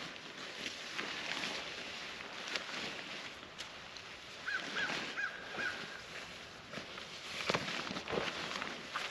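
Camouflage tarp rustling and flapping as it is shaken out and spread by hand, loudest in a flurry near the end. About halfway through, a bird calls four quick notes in a row.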